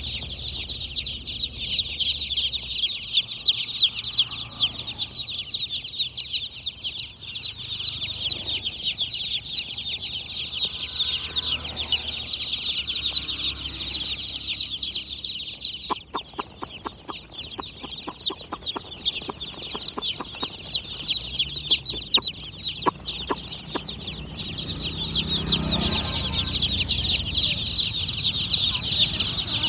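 A crowd of baby chicken chicks peeping continuously, a dense chorus of short, high chirps. Just past the middle, a run of fast, light clicks goes on for several seconds over the peeping.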